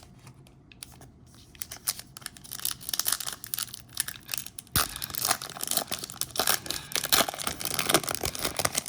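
Foil wrapper of a Topps Chrome trading card pack being torn open and crinkled: a quiet start, then a dense run of irregular crackling from about two seconds in.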